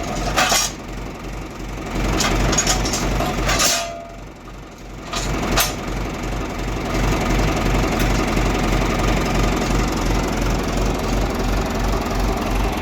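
John Deere 2355's diesel engine idling steadily, with a few sharp metal clanks in the first half.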